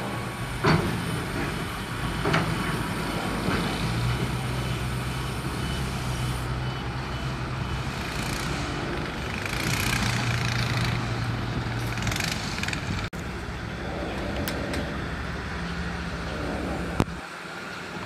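Diesel engines of heavy earthmoving machinery running steadily, with a few sharp clanks and knocks: one about a second in, one a couple of seconds later, and one near the end.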